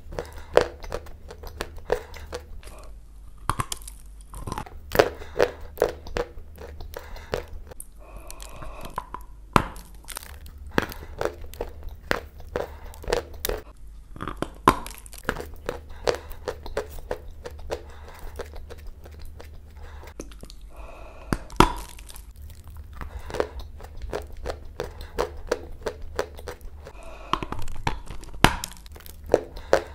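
Close-miked crunching as lumps of white Turkestan clay are bitten and chewed: clusters of sharp, crunchy bites with short pauses between them, over a steady low hum.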